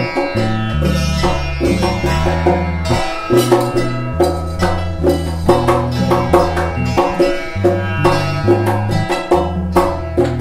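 Instrumental folk music: a plucked domra over hand percussion with steady strikes, under a low line of held notes that changes about once a second.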